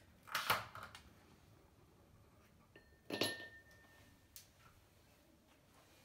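A metal spoon clattering against a stainless steel pot: two short clatters about three seconds apart, the second leaving a brief ringing tone, then a light click.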